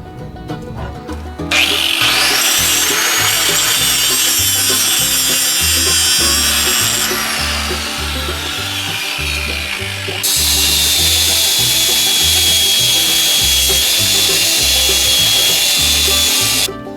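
Angle grinder grinding steel on a backhoe bucket, a loud grinding with a high whine, in two runs: the first sags in pitch as the disc is loaded, the second is a steady whine that stops shortly before the end. Background music with a steady bass beat plays underneath.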